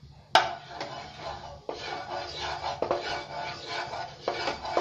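Wooden spatula scraping and tapping against a stone-coated non-stick kadai as it spreads mustard oil across the pan, starting with a sharp knock and followed by steady scraping strokes with a few lighter knocks.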